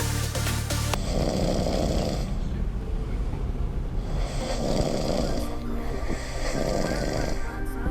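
A sleeping man snoring: three snores about two and a half seconds apart, the first about a second in.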